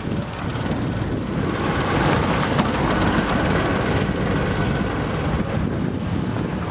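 Diesel engine of a backhoe loader running steadily. It grows louder for a few seconds in the middle, with one sharp click about two and a half seconds in.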